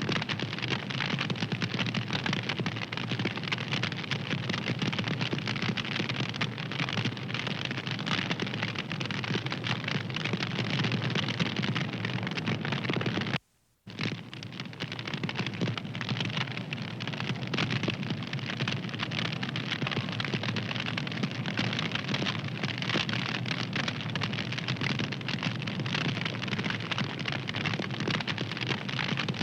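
Wood fire crackling steadily with a dense run of small crackles, cutting out to near silence for about half a second near the middle.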